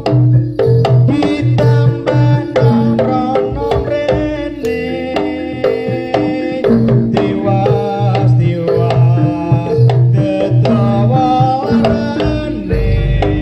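Live jaranan music from a Javanese gamelan-style ensemble: rapid hand-drum (kendang) strokes over a low pulse about once a second, with a busy pitched melody line on top.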